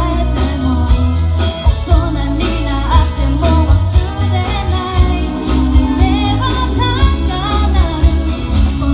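Christmas pop song with jingle bells over a steady beat and a sung melody.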